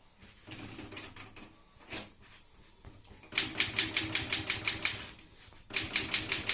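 Typewriter keys striking in quick, even runs of about five or six strokes a second, after a few seconds of softer, scattered tapping. The artist is typing characters over one another to build up a drawing.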